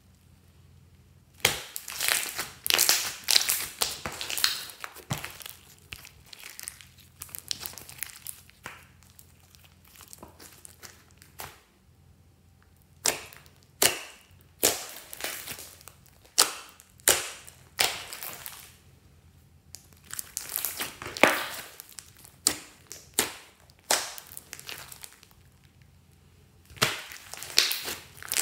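Hands squeezing, poking and pressing glossy slime, giving clusters of short, sticky crackling pops as trapped air squelches out, with a few short pauses between handlings.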